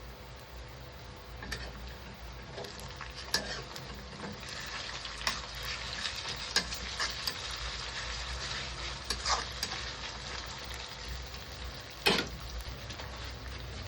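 Food sizzling as it fries in a pan, with a cooking spoon stirring it and now and then scraping or knocking against the pan; the sharpest knock comes near the end.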